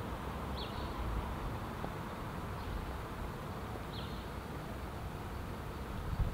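Quiet outdoor street ambience: a steady low rumble, with two brief, high bird chirps a few seconds apart and a low bump near the end.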